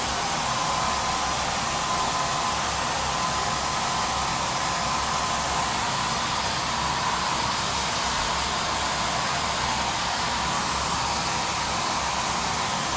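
Hair dryer blowing hard and steadily on a high-power fast-dry setting while drying long hair: a loud, unbroken rush of air with a steady whine over it.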